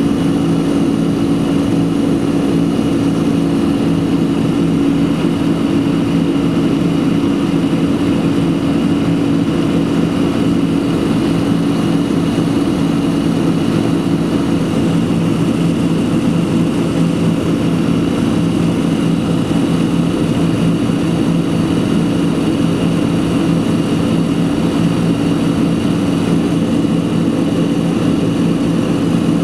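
Boeing 767-300's jet engines heard from inside the cabin over the wing during the climb: a steady, unchanging drone with a low hum held at a constant pitch.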